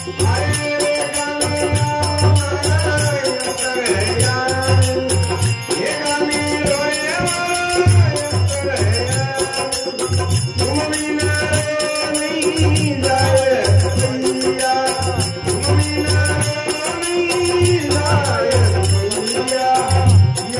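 A man singing a Rajasthani folk song in a gliding, ornamented voice through a microphone and amplifier, with a low drum beat and jingling percussion.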